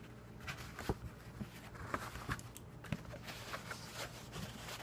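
A creased sheet of paper being handled and moved close to the microphone: rustling, with scattered sharp crackles.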